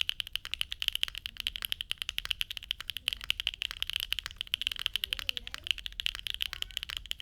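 Fast, continuous typing on a Neo80 mechanical keyboard with HMX Macchiato switches, a carbon fibre plate, no case foam and JTK keycaps: a dense, even run of sharp keystroke clacks.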